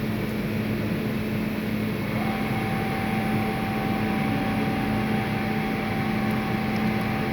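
Gildemeister CTX 600 CNC lathe running, a steady mechanical hum. About two seconds in, a steady higher whine sets in and holds.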